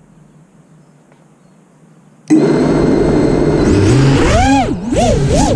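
FPV quadcopter's brushless motors and propellers starting abruptly about two seconds in with a steady whine, then whining up and down in pitch again and again as the throttle is worked.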